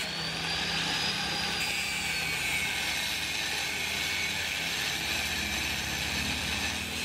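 Handheld electric angle grinder with a thin cut-off disc cutting into a steel plate, a steady high whine that dips slightly in pitch about two seconds in as the disc bites into the metal under load.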